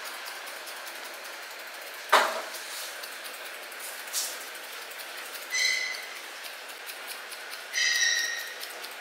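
Steel grooming scissors snipping a poodle's coat: a sharp click about two seconds in, a lighter click a couple of seconds later, then short, high, ringing scrapes as the blades slide shut, twice near the end.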